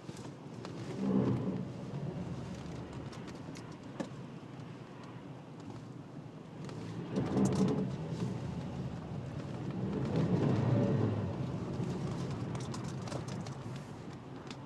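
Low rumble from a Skoda Octavia A7 that swells three times, with one sharp click about four seconds in. These are the extraneous noises the owner is chasing.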